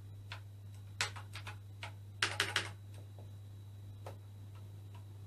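Keys being pressed on a BBC Master 128 computer keyboard: a few keystrokes about a second in and a quick run of several around two and a half seconds in, with single presses between, over a steady low hum.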